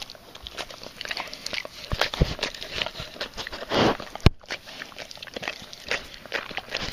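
Dogs licking and mouthing close to the microphone: irregular wet smacks and clicks, with a brief rush and a sharp knock a little past halfway.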